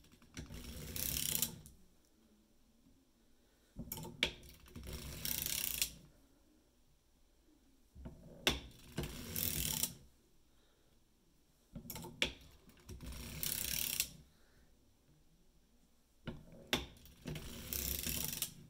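Circular sock machine being hand-cranked to knit a sock toe: the cam shell clatters over the needles in five short passes, each opening with a couple of sharp clicks and lasting about two seconds, with pauses of about two seconds between them.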